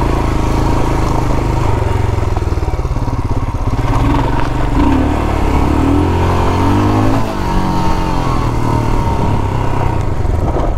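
Royal Enfield Himalayan's single-cylinder engine running as the motorcycle is ridden. The engine note rises and falls with the throttle about halfway through.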